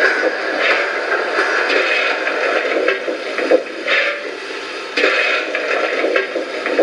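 Zimo digital sound decoder in an LGB G-scale model of the HSB steam locomotive 99 222, playing standing-steam-locomotive sounds through its small built-in speaker: a steady hiss with irregular louder puffs.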